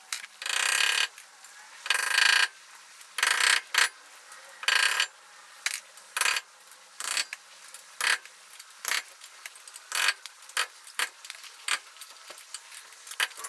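A metal hand tool working at a truck's front wheel hub: a string of short metal-on-metal scraping and clicking strokes. The first few strokes are longer, and later ones come quicker and shorter, about one or two a second.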